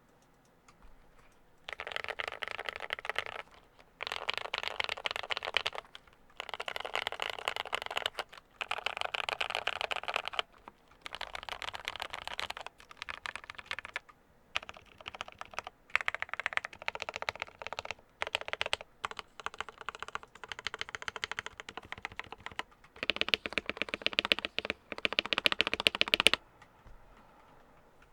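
Typing on an Epomaker TH80 mechanical keyboard with lubed Gateron Pro Black linear switches, tape and PE foam mods and PBT keycaps: fast runs of keystrokes in bursts of about two seconds with short pauses. The typing gets denser near the end, then stops.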